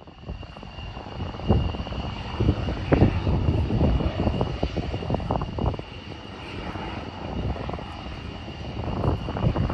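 F-16 fighter jet's engine heard from a distance as the jet rolls along the runway: a steady high whine over a low, uneven rumble that swells over the first few seconds.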